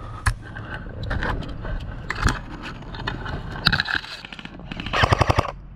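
An airsoft gun fires a short rapid burst of about eight shots near the end. Before it come a few scattered single clicks and some scraping.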